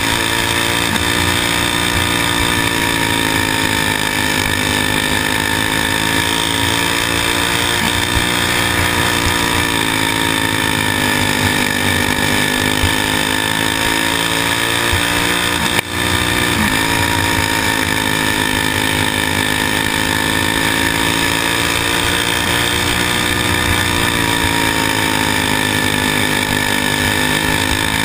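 Racing kart engine heard from on board at race speed, its pitch rising and falling several times as the driver gets on and off the throttle through the turns of a dirt oval.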